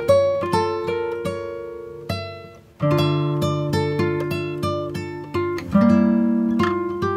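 Background music: an acoustic guitar picking single notes in a steady rhythm, each note ringing and fading.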